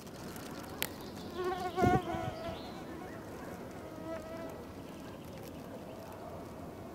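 A flying insect buzzing close by, its whine wavering in pitch. It is strongest around one and a half to two and a half seconds in, and again around four seconds. A single sharp click comes just under a second in.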